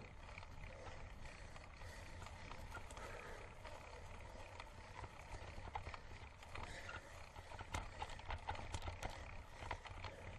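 Mountain bike riding uphill over a rough stubble-field track: a steady low rumble of wind and tyre noise at the handlebar mount, with scattered clicks and rattles from the bike over the bumps, more of them in the second half.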